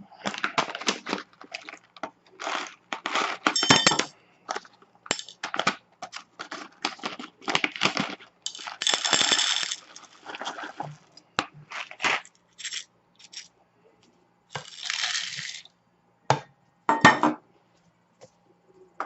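Coffee beans and the KRUPS F203 blade grinder's bowl and lid being handled: a string of short clinks, rattles and taps, with two longer rattling stretches, one about nine seconds in and one near fifteen seconds. The grinder motor does not run.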